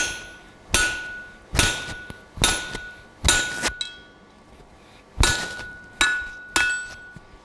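Blacksmith's hammer striking a hand punch into a red-hot steel bar on the anvil, punching a hole through from the second side. Eight blows at a steady pace, with a pause of about two seconds after the fifth, each leaving a short metallic ring.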